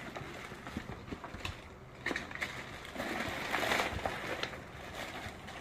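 Black plastic garbage bag rustling and crinkling as hands rummage through the things inside it, with small knocks of items being shifted. The rustling is loudest from about three to four seconds in.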